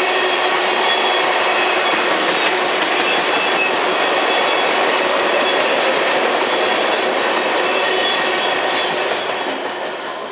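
Empty ethanol tank cars of a freight train rolling past, steel wheels clattering on the rail joints with a faint high wheel squeal. The sound starts to fade about nine seconds in.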